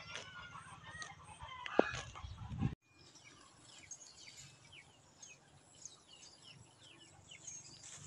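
Faint birds calling: a few wavering calls in the first seconds, then, after an abrupt cut, many short high chirps.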